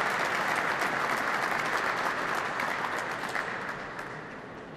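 Audience applauding, a steady patter of many hands clapping that dies away over the last second or two.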